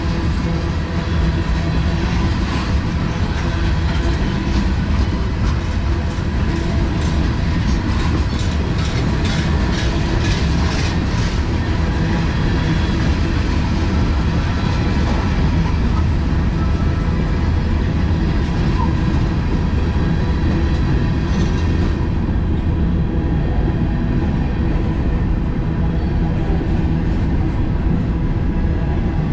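Freight cars of a CSX mixed manifest train rolling past with a steady low rumble, their wheels clacking over the rail joints, the clacks thickest in the first dozen seconds.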